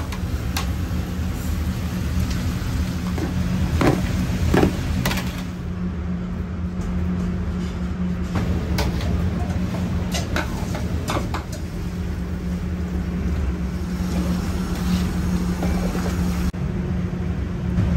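Metal ladle scraping and knocking against a large aluminium pot as diced onions and carrots are stirred, over a steady low rumble.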